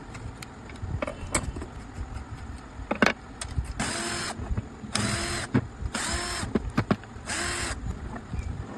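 Makita angle grinder's electric motor switched on in four short bursts, each whining up and cutting off after about half a second, after a few clicks.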